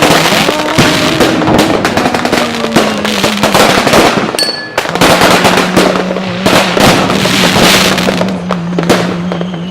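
Fireworks bursting and crackling in rapid, dense bangs over music with long held notes.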